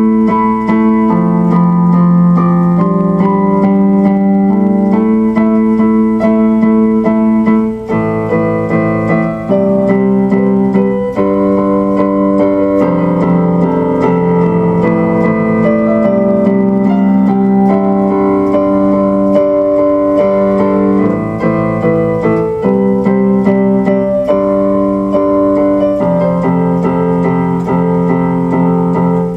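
Background music: electric piano or keyboard playing sustained chords that change every second or two.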